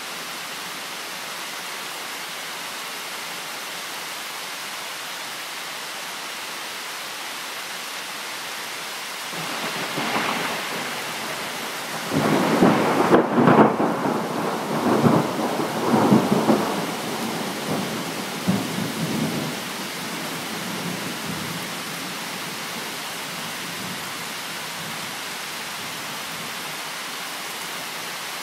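Steady rain falling with a long roll of thunder about a third of the way through. The rumble builds for a few seconds, peaks in several loud rolling cracks, then fades back into the rain.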